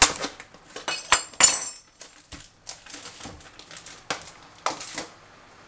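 Kitchen handling sounds: a series of sharp knocks and clinks against a stainless steel mixing bowl and utensils, about half a dozen spread over five seconds, with lighter rattling between them.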